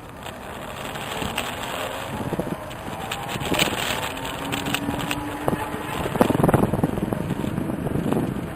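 Wind rushing over the microphone on a moving electric bike, with a faint electric motor whine rising slowly in pitch as it speeds up and scattered clicks and rattles.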